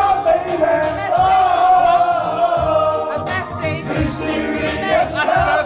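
Several young men singing along to a pop backing track with a steady beat.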